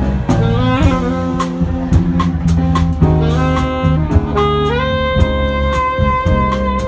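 Small jazz band playing live: a saxophone carries the melody over electric bass and drums. The saxophone steps through a phrase of short notes, then holds one long note near the end, while the drums keep a steady beat.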